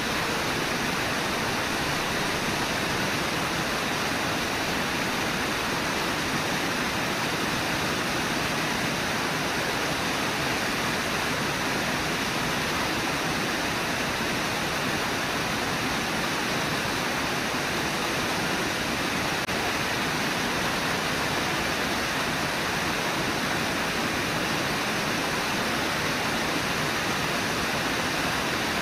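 The Brooks River rushing through Brooks Falls: a steady, unbroken roar of white water with no pauses or changes.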